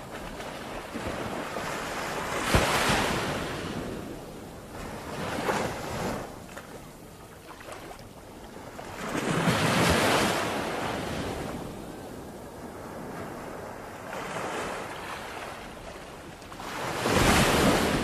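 Surf washing onto a shore, swelling and fading in several surges, with wind on the microphone.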